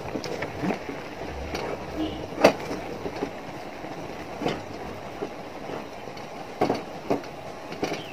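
Wooden spatula stirring rice flour into boiling water in a steel pot, scraping steadily, with a few sharp knocks against the pot, the loudest about two and a half seconds in. This is rice flour being scalded into dough.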